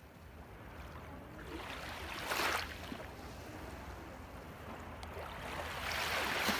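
Waves washing in: a rushing sound that fades in and swells twice, about two and a half seconds in and again near the end, over a low steady hum.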